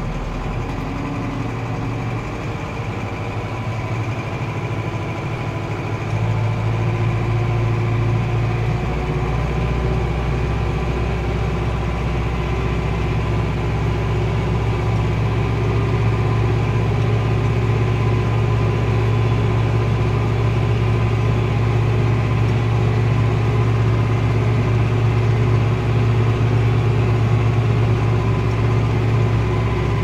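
Zetor Proxima 100 tractor's four-cylinder diesel engine running steadily under load while pulling a reversible plough, heard inside the cab. It grows louder about six seconds in and then holds steady.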